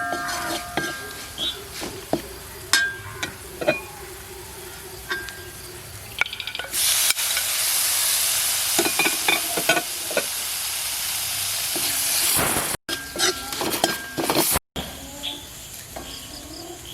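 Spoon stirring and clinking against a pan of onion-and-spice masala, then a loud steady sizzle for about six seconds as the masala fries in oil.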